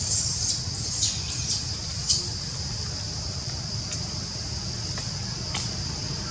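Baby long-tailed macaque giving a run of shrill distress cries, each falling in pitch, over the first two seconds. After that only a steady high-pitched hiss remains, with two faint clicks.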